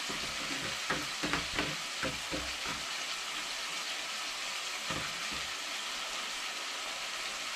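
Chicken pieces with onions and curry powder sizzling steadily in hot oil in a pot. A few short knocks of a utensil stirring come in the first couple of seconds, and one more about five seconds in.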